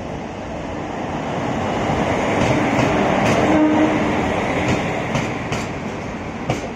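Express passenger train running into a station: a steady rumble of coaches that swells to its loudest about halfway through and then eases, with sharp clicks of wheels crossing rail joints in the second half.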